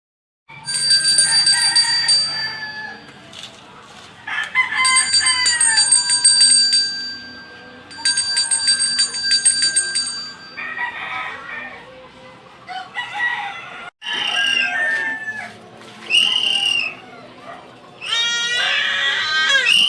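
Chickens: a rooster crowing in long calls over the first ten seconds, then a run of shorter clucking calls.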